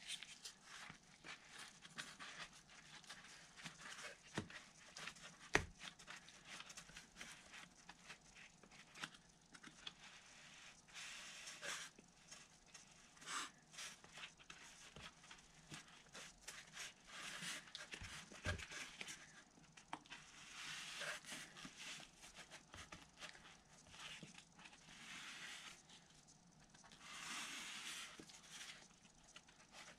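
Faint, irregular scraping and rubbing as nitrile-gloved fingers and a balsa scrap press resin-wet carbon fiber tow down into a spar slot in a foam wing, with a few small knocks.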